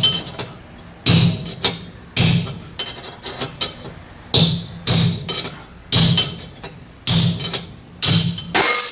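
Hammer blows on steel parts of a Chevy 10-bolt rear axle: about eight heavy strikes at an uneven pace, each with a short metallic ring, driving out a part that is stuck tight.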